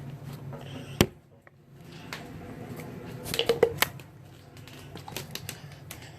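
Handling noise of a camera being passed over and held: scattered small clicks and knocks, with one sharp click about a second in followed by a brief dip to near quiet.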